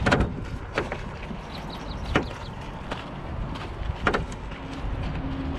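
Steady wind rumble on the microphone, with four sharp knocks and taps from hands working a shoe and its laces on a pickup truck's tailgate.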